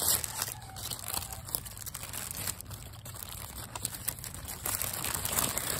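Paper burger wrapper crinkling and rustling steadily as hands unfold it, with many small crackles.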